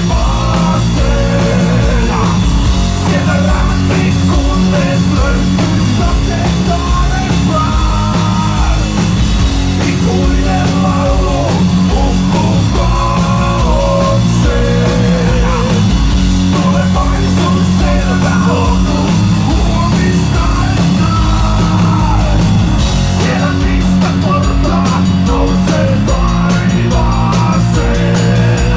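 Heavy metal band playing loud live: distorted electric guitars over a pounding drum kit, with a melodic line moving above.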